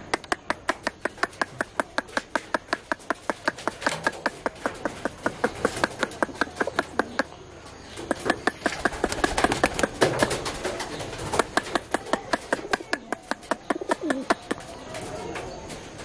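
Domestic pigeons cooing over a steady rapid clicking of about five clicks a second that pauses briefly twice.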